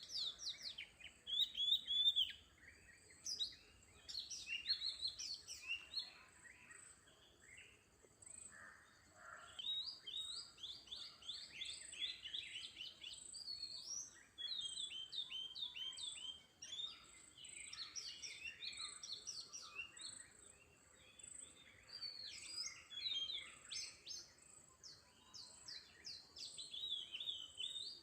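Small birds chirping: runs of rapid, short, high chirps, several birds overlapping, with pauses between the runs. A faint steady high-pitched whine lies underneath.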